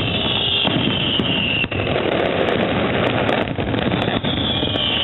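Fireworks display going off in a dense, steady barrage of crackling and bangs. A high whistle falls in pitch twice, at the start and again near the end.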